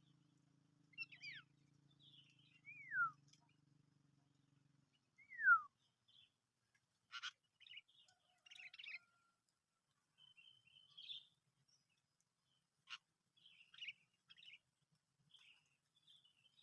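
Songbird calls: three short, clear whistled notes that slide downward, the loudest about five and a half seconds in, followed by scattered short chirps and a few sharp clicks. A faint low hum stops about four and a half seconds in.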